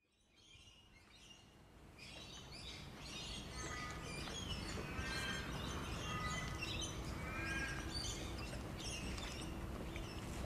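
Several birds chirping and calling over a steady low rumble of background noise, fading in over the first couple of seconds.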